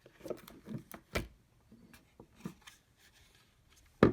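Handling noise of a Hart 20V battery power source and USB charging cable: scattered light plastic clicks and rubs, a louder click about a second in, and a sharp double click at the very end as a plug goes in.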